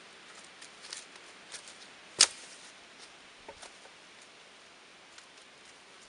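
Footsteps and light rustling in forest leaf litter as dry sticks are gathered for firewood, with scattered small knocks of wood and one sharp crack of a stick about two seconds in.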